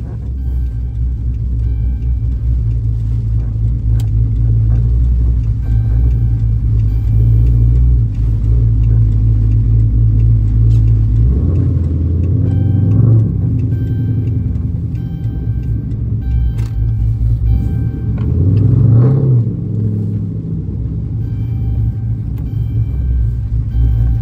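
Cammed 6.4-litre HEMI V8 of a Dodge Charger SRT8 running steadily, its pitch rising briefly twice as it revs, about halfway through and again about three-quarters through. Background music plays faintly over it.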